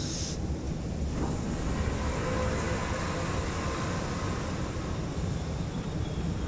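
Interior running noise of an Alstom R151 metro train: a steady rumble of wheels and running gear as it pulls into a station platform, with a faint motor whine about two seconds in.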